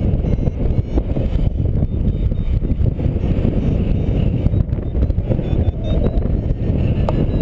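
Wind rushing over the microphone of a paraglider's riser-mounted camera in flight: a loud, steady low buffeting.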